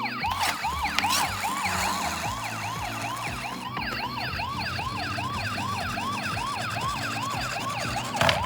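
Toy ambulance's electronic siren sounding a fast rising-and-falling yelp, about three sweeps a second, with a sharp click near the end.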